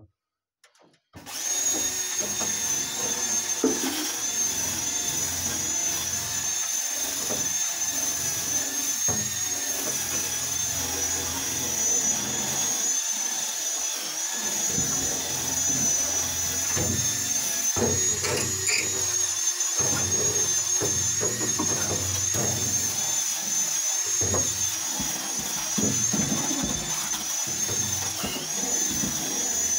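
Handheld power tool running steadily on the rusty steel floor pan of a stripped car, scouring off rust and dirt: a high whine that wavers slightly over a rough grinding noise, starting about a second in.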